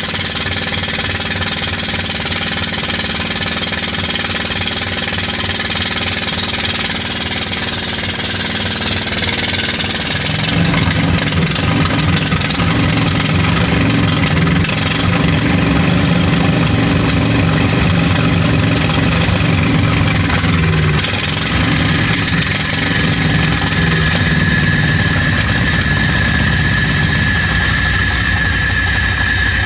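The Caterpillar diesel engine of a 1954 Chicago Pneumatic portable air compressor being started. It is turned over at first, then about ten seconds in it catches and settles into a deep, heavy run. A steady high tone joins in late.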